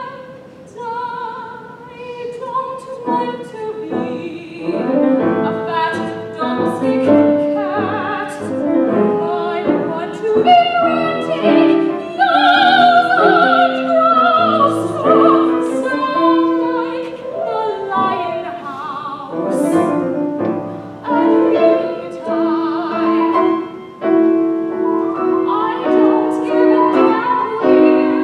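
Classical soprano singing an art song with vibrato, accompanied by a grand piano playing chords under the vocal line.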